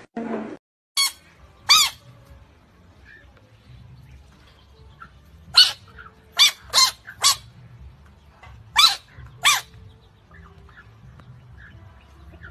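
Eight short, sharp, high-pitched animal yelps, each rising and falling in pitch, coming singly and in quick runs.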